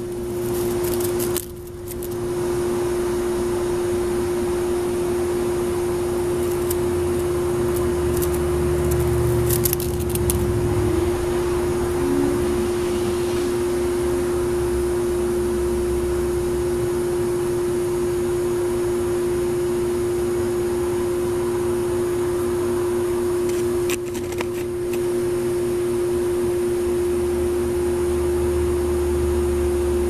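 A steady mechanical hum with one constant low tone, with a few brief rustles around ten seconds in and again near the end.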